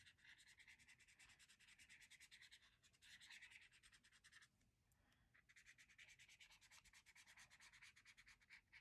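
Faint, rapid scratchy strokes of a brush pen tip rubbing colour across cardstock, spreading the shade, with a short pause about halfway through.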